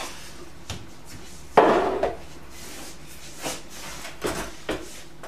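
Kitchen items being set down and handled on a worktop: one sharp knock about a second and a half in, then a few lighter clicks.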